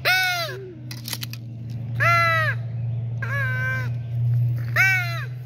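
Crow cawing four times, each caw drawn out for about half a second and arching up then down in pitch, roughly a second and a half apart, over a steady low hum.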